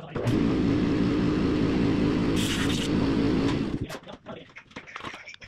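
Impact wrench running continuously with a steady hammering rattle, driving in the bolts on an excavator final drive during reassembly; it stops about four seconds in.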